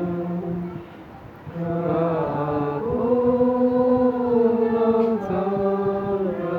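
Voices chanting in long held notes, with a short break about a second in.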